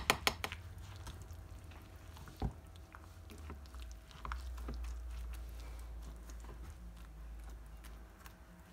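Silicone spatula stirring a thick, wet batter in a glass bowl, faint and soft, with a few quick clinks of a wire whisk on the glass in the first half second and a single knock about two and a half seconds in. A low steady hum runs underneath.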